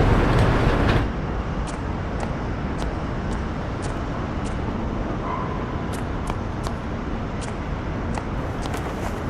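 Steady low rumbling ambient noise, louder in the first second and then dropping, with faint scattered ticks through the rest.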